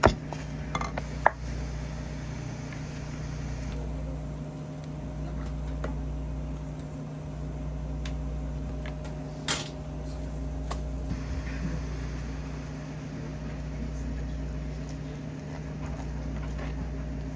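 Steady mechanical hum of kitchen equipment, such as a fan or cooling unit, with a thin steady tone over it. A few light clicks and knocks come in the first second and a half, and one more about halfway through.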